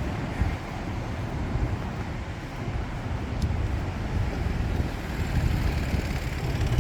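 Street traffic: a steady low rumble of passing cars, growing slightly louder toward the end.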